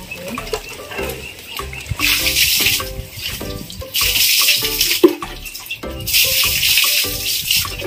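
Pails of water thrown over a pig and splashing onto a concrete pen floor: three splashing pours, about two seconds apart.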